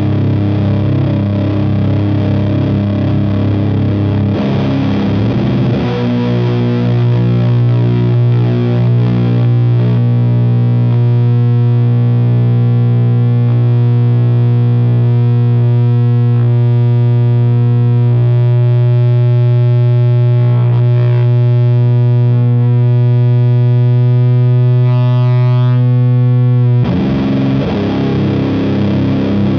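Electric guitar (Fender Jazzmaster with Gibson P94 pickups, tuned to C standard) through a Burden high-gain fuzz/distortion pedal and an Ampeg V4B amp, playing heavy drone chords. About six seconds in, a new chord is struck and sustains for about twenty seconds, its upper overtones slowly fading. Near the end another chord is hit.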